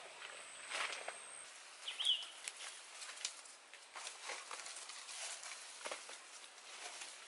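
Scattered rustling and light knocks from handling sticks and leaves on leaf-littered ground, with a short high chirp about two seconds in.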